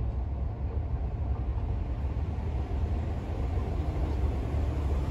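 Low, steady engine rumble of a diesel locomotive approaching from a distance.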